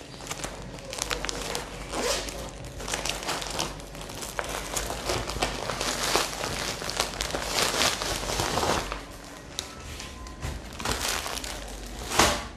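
A clear plastic garment package crinkling and rustling as it is handled and opened, in irregular bursts. It eases off about nine seconds in, with a sharper rustle near the end.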